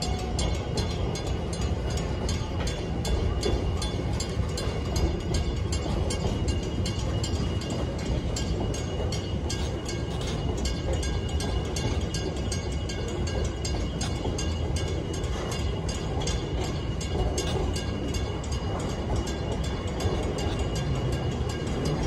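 Freight train wagons rolling past: a steady rumble of wheels on rail, with quick, regular clicks throughout.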